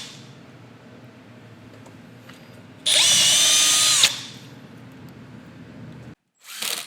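Power drill driving a screw while door hinges are mounted: one loud burst of steady motor whine lasting about a second, which drops in pitch as the trigger is released. A low steady hum runs underneath.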